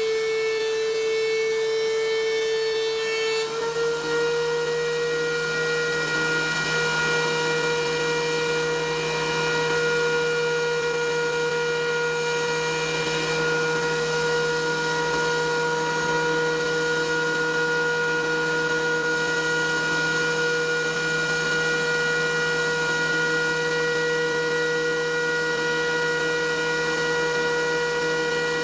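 DeWalt DW735 benchtop thickness planer running with a steady motor whine. The pitch steps up slightly a few seconds in.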